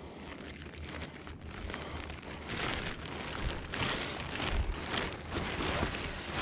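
Irregular rustling and crinkling handling noise, louder from about two and a half seconds in, as a caught carp is handled and tied onto a stringer.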